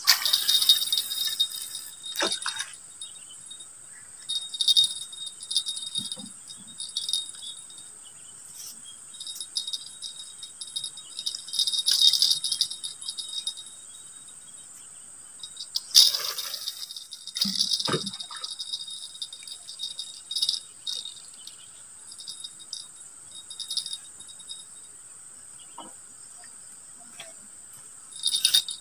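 Crickets chirping steadily in an even high drone, with the cast of a spinning rod at the start, short bursts of rattling and clicking every few seconds, and a couple of low knocks about eighteen seconds in.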